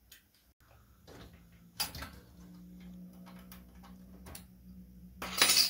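Wiring connectors being unplugged and a circuit board handled inside an LCD monitor's metal chassis: scattered small clicks, a sharper click about two seconds in, and a louder short scraping rattle near the end, over a faint steady hum.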